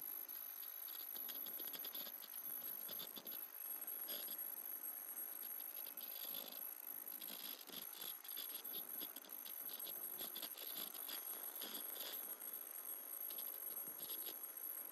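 Tie-on earloop welding machine for surgical masks running, its mechanism making a fast, uneven clicking and rattling.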